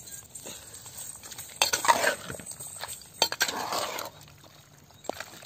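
Metal ladle stirring wet quail masala in a clay pot, scraping and clinking against the pot in a few strokes, the loudest about two seconds in and again around three to four seconds in.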